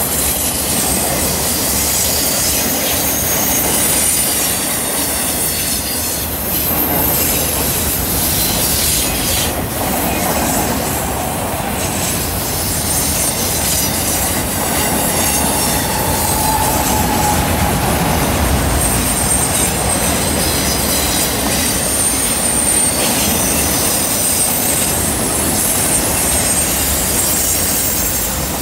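Freight train of enclosed autorack cars rolling past at close range: steady rumble of steel wheels on rail with clacking over the rail joints, and thin, high wheel squeal that comes and goes.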